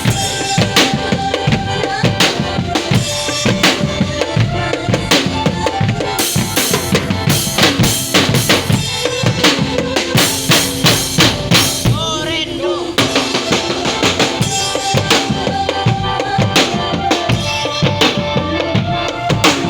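Music led by drums: steady, dense drumming with a melody of held notes over it, and a wavering, vibrato-like melodic line about two-thirds of the way through.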